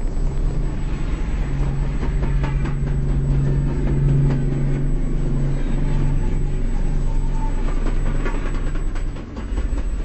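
Aerial fireworks shells bursting in quick succession, heard as a continuous rolling rumble broken by sharp cracks, over a steady low hum.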